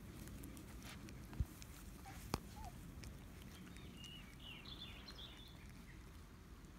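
Quiet outdoor ambience with a steady low rumble, two sharp clicks in the first few seconds, and a short run of high, wavering chirps about four to five seconds in.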